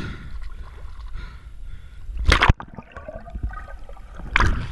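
Sea water sloshing and gurgling around a swimmer at the surface, with two loud splashes, about two seconds in and near the end; after the first the sound goes dull for a moment, as if under water.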